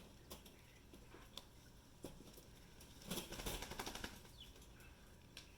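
A quail flapping its wings in a brief flurry of rapid beats about three seconds in, among scattered small clicks and rustles of handling.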